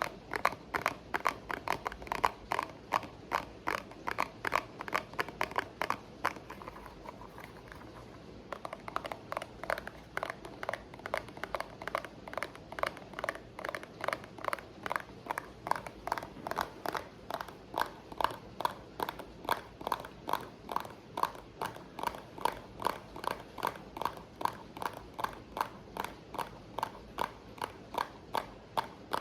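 ASMR tapping: quick, steady taps at about four a second. The taps fade out about six seconds in, pause for a couple of seconds, then carry on at the same pace.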